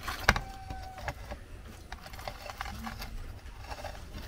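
Light knocks and taps of fried plantain snacks being handled and set into a white dish, the sharpest knock about a third of a second in, over a low steady background hum.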